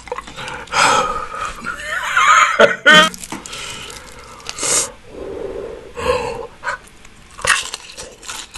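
A man eating extremely spicy fried chicken, taking sharp, hissing breaths and blowing out through his mouth against the heat, with a short voiced exclamation about three seconds in. Between the breaths there is the crackle of the sauced, crispy chicken being torn apart by hand.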